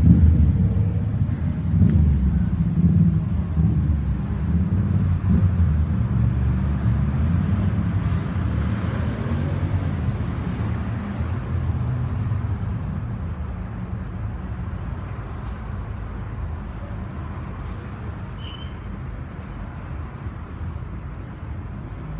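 Street traffic: cars moving and idling at a city intersection, a low uneven rumble that is loudest at first and grows gradually fainter.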